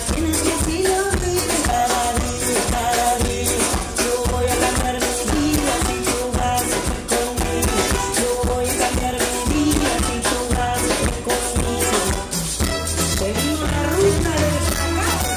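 Live band playing Latin music, with drums, bass, guitars and rhythmic percussion under a melody line, heard from within the audience.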